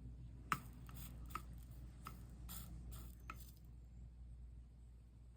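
Several light clicks and taps of small hard objects being handled, spread over the first three and a half seconds, over a steady low hum.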